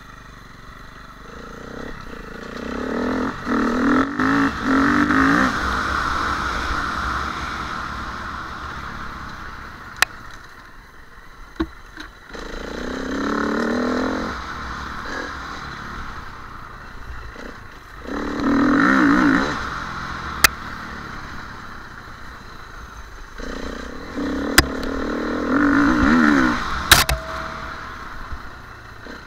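KTM 350 EXC enduro motorcycle's single-cylinder four-stroke engine revving up in repeated bursts and dropping back between them, as the rider opens and closes the throttle on a rough trail. Several sharp knocks and clatters come from the bike over the bumps.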